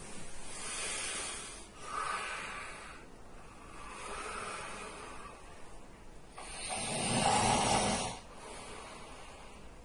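A sleeping man's snoring: a run of hissing, rasping breaths, with one much louder, rumbling snore lasting about two seconds in the second half.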